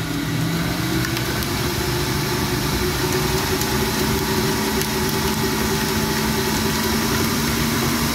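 Planetary stand mixer running steadily, its motor humming as the dough hook kneads a wet, 100%-hydration sourdough starter in a stainless steel bowl. The hum shifts slightly in pitch about a second in.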